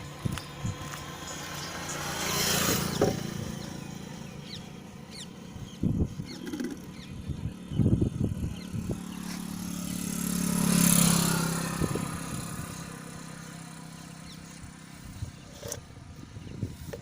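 Road traffic: two motor vehicles pass by, one about two seconds in and another about eleven seconds in, each rising and fading over a steady low engine hum, with a few short knocks in between.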